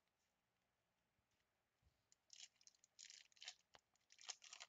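About two seconds of near silence, then several short, faint rustles of a foil trading-card pack wrapper and the baseball cards being handled as the pack is opened.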